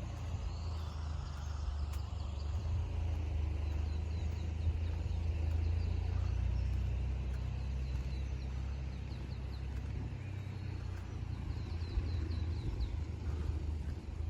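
A steady low rumble, with faint small-bird chirps above it and a quick run of chirps near the end.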